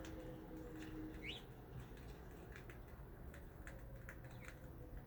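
A single short, rising bird chirp about a second in, over faint low rumble and scattered light clicks, with a faint steady hum underneath.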